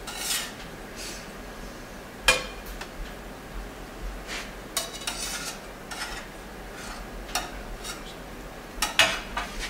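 Kitchen clatter of plates and metal utensils: scattered clinks and knocks, the sharpest about two seconds in and again near the end.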